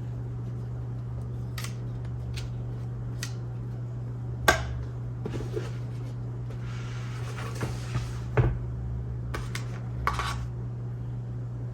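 Small hard parts clicking and knocking as they are handled, with the loudest knock about four seconds in and a short stretch of rustling a couple of seconds later, over a steady low hum.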